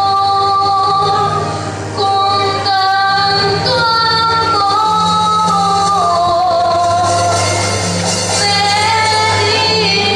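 Music: a woman singing long, wavering notes over a steady accompaniment.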